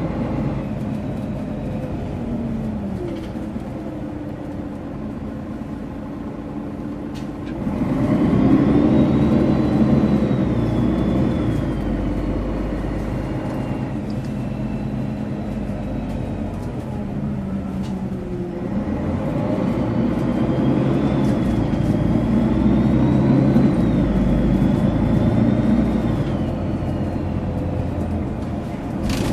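Mercedes-Benz Citaro O530G articulated bus's diesel engine pulling away twice, about seven seconds in and again near the twenty-second mark. Each time the turbocharger whistle rises and wavers above the engine note. Between the two pulls the engine runs quieter.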